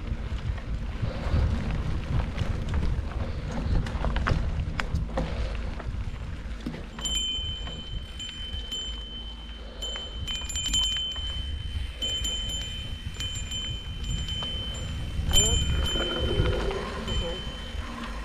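Mountain bike riding on dirt singletrack: tyre and wind rumble with chain and frame rattles. From about seven seconds in, a steady high ratcheting buzz from a coasting rear freehub cuts in and out several times as pedalling stops and restarts.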